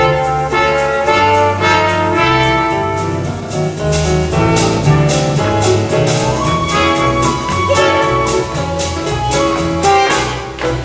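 Orchestra playing a jazzy instrumental dance section of a show tune, brass to the fore over a steady beat, with a rising glide up to a held note about six seconds in.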